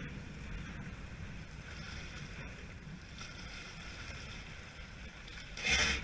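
Steady wind noise on the microphone and sea water moving around a stand-up paddleboard, with a short loud whoosh near the end.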